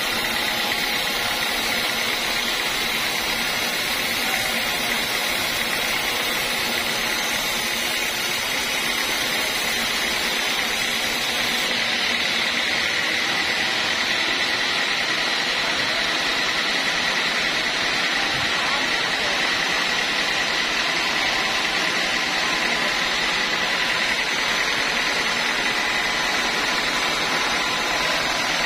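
Band sawmill running steadily, its motor and blade making an even mechanical noise with a steady high whine.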